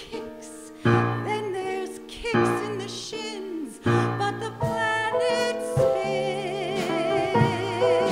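A woman singing a cabaret show tune with piano accompaniment: the piano strikes chords about every second and a half, then her voice holds one long note with vibrato near the end.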